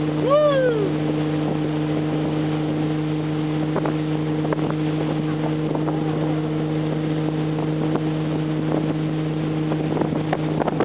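Motorboat engine running steadily at towing speed, a constant drone over the rush of water and wind. A short rising-and-falling shout comes in the first second.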